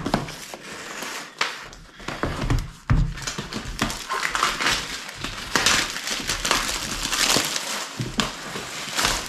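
Clear plastic shrink wrap crinkling as it is pulled off a hard plastic flight case. A few dull knocks come from the case being handled and set down.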